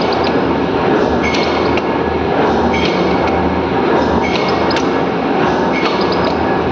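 Factory machinery making thresher sieves, running steadily with a clattering metallic stroke that repeats roughly every one and a half seconds.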